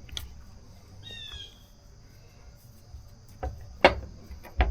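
A few sharp clicks and knocks of tools being handled against the scooter wheel and tire, the loudest about four seconds in, over a steady high-pitched hiss. A short chirp sounds about a second in.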